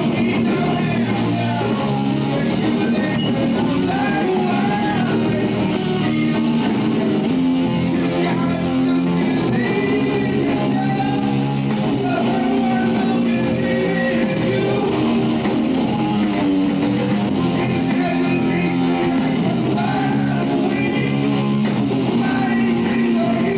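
Live heavy metal band playing: distorted electric guitar, bass and drums, with a male voice singing over them.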